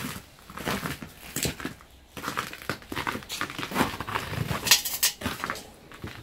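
Footsteps crunching over shattered glass, snow and debris on a burned carriage floor, in slow, irregular steps with a sharper crunch a little before the end.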